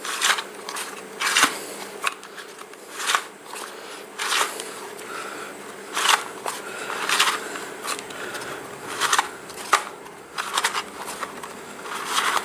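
Plastic recoil starter spool of a Ryobi leaf blower being wound round by hand in its housing, tensioning the recoil spring: a short plastic scrape or rasp with each turn, roughly once a second.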